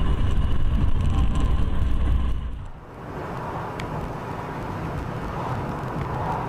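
Dash-cam recording of a car's road and engine noise from inside the cabin: a loud low rumble at highway speed drops off abruptly about two and a half seconds in. It gives way to a quieter, steady hiss of a car driving along a town road at about 55 km/h.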